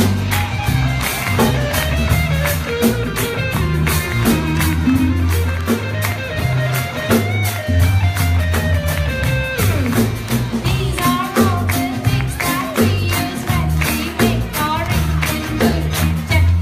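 Live band playing a song with a steady drum beat, electric guitars and harmonium, and a woman singing.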